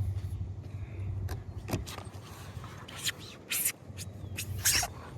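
Scattered knocks and a few short scraping rustles from handling gear and shifting around on the paddle boat, over a low steady rumble.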